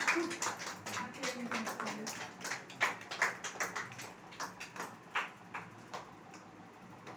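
A few people clapping their hands unevenly, the claps thinning out and stopping about six seconds in.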